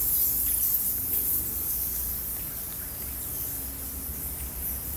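Steady high-pitched chirring of wildlife, over a low rumble that eases off after the first second.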